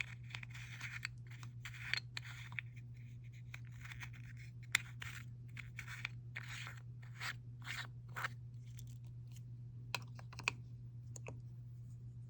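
Plastic packaging crinkling and rustling, with scattered sharp clicks and taps from small jars of nail powder being handled, over a steady low hum.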